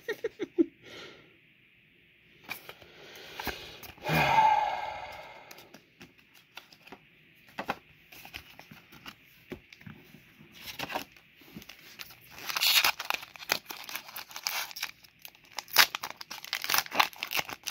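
Foil booster pack wrapper crinkling and tearing, mixed with the flick and rustle of trading cards being sorted, in scattered bursts; the loudest stretch comes about four seconds in, and dense crinkling returns near the end.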